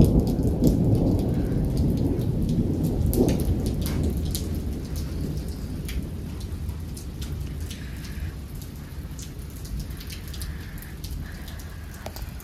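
A thunderstorm: a long roll of thunder, loudest at the start and dying away over about ten seconds, over steady rain with hail, the stones and drops striking in many sharp ticks.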